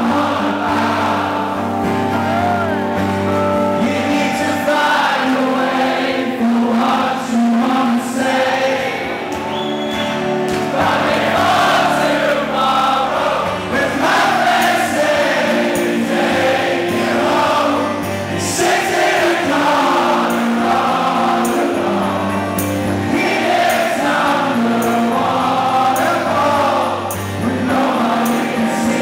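Live rock band playing with a man singing, the music loud and continuous.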